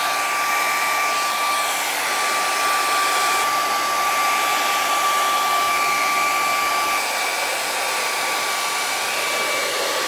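Inexpensive $10 handheld hair dryer blowing steadily on its cold setting: a loud rush of air with a steady high motor whine, switched on suddenly at the start.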